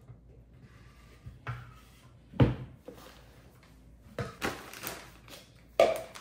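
Kitchen handling noises while thick almond glaze is transferred into a piping bag: a dull knock about two and a half seconds in, the loudest, then several lighter knocks and rustles.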